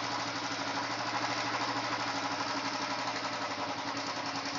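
Royal Enfield single-cylinder four-stroke engine idling steadily and a little fast, with its idle screw set on the high side. Its carburettor mixture is not yet adjusted, and the mechanic reads it as running somewhat rich.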